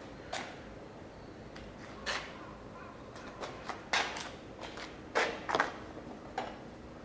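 Irregular sharp clicks and knocks of tools and metal parts being handled, about a dozen in all, bunched in the middle with the loudest pair about five seconds in.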